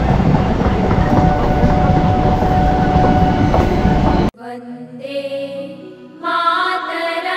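Loud, steady rumble of a running train with a thin steady whine over it. About four seconds in it cuts off abruptly and music takes over.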